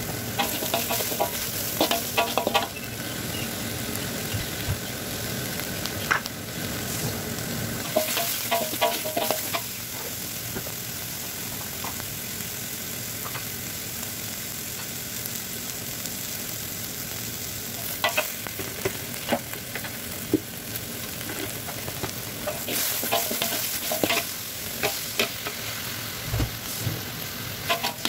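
Ground spice paste with chilies sizzling in hot oil in a wok, with a steady frying hiss. A metal spatula stirs it, scraping and clinking against the wok in short spells every several seconds.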